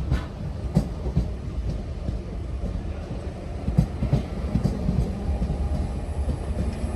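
A train running through the station: a steady low rumble with irregular sharp clicks from wheels passing over rail joints and points.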